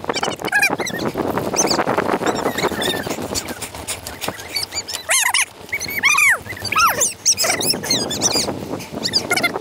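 Bicycle ride audio from a handlebar-mounted camera, played at four times normal speed: a rough rush of wind and road noise, with a run of short, high, squeaky chirps in the second half.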